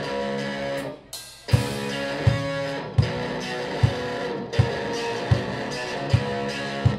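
Live rock band: an electric guitar plays sustained chords, breaks off briefly about a second in, then comes back in over a steady kick-drum beat of about four beats every three seconds.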